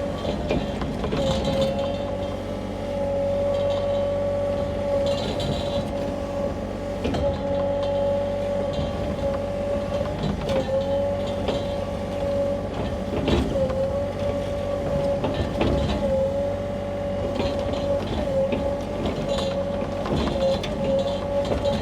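Sany mini excavator running at raised throttle, with a steady high hydraulic whine that dips briefly several times as the arm works, and scattered knocks as the bucket digs into the soil.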